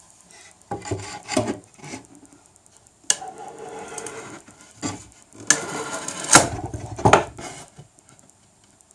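A wooden plank knocking and scraping against a wooden desk as it is pushed and fitted into place: scattered knocks, a stretch of scraping, and the loudest knocks around six to seven seconds in.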